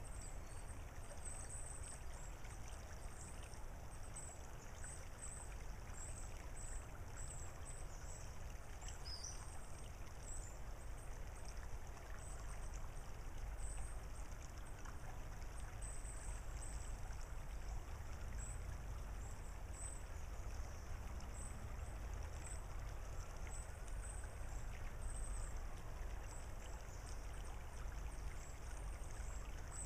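Shallow creek water trickling over a pebble bar, heard as a steady soft wash over a low rumble, with faint high chirps repeating throughout.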